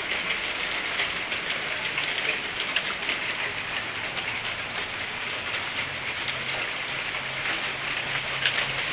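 Hailstorm pelting down with rain: a steady dense patter, studded with many sharp ticks of hailstones striking the balcony, railings and ground.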